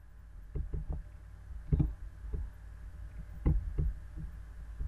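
Computer mouse and keyboard clicking: about a dozen short, irregular clicks over a faint low hum.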